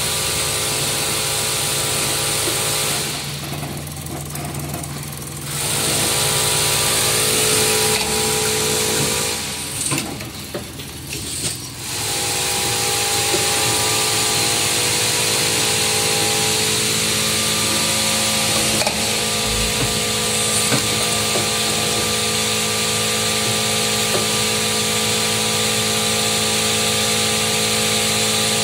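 High-speed coil nail collating machine running: a steady mechanical whirr with several held hum tones under a high hiss. It dips quieter twice, a few seconds in and again around the middle, then comes back.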